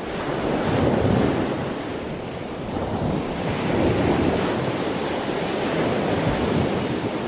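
Ocean surf rushing steadily, rising in over the first second, then swelling and easing slowly.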